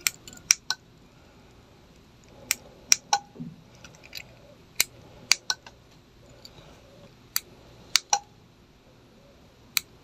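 Sharp clicks in clusters of two or three, about every two seconds: the relay inside a Sonoff RF R2 smart switch clicking on and off as it is toggled by a keyfob remote.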